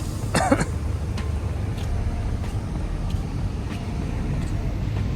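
Heavy truck's diesel engine running with a low, steady rumble. A short sound falling in pitch comes about half a second in.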